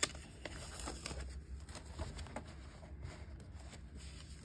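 Faint paper handling: a sticky note peeled off a coloring book page with a short sound at the start, then light rustles and small scattered ticks.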